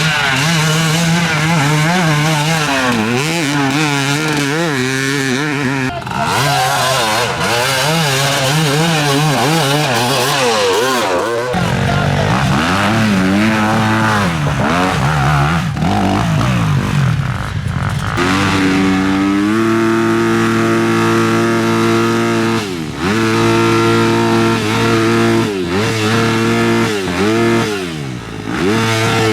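Enduro motorcycle engines revving hard, the pitch rising and falling with the throttle. From about two-thirds in, an engine holds high revs with several brief dips.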